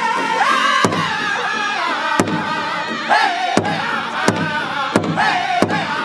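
A powwow drum group of men singing in loud, high unison around a large rawhide big drum, beating it together with padded sticks. The sharp drum strikes come about a second and a half apart at first, then closer together near the end.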